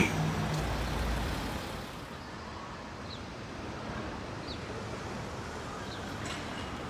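City street background: a low vehicle rumble that fades out in the first second and a half, leaving a steady wash of traffic noise and wind. A few faint, short, high chirps sound through it.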